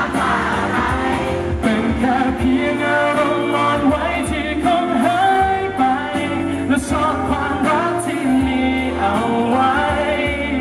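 Male singer singing a pop song live into a handheld microphone over amplified backing music.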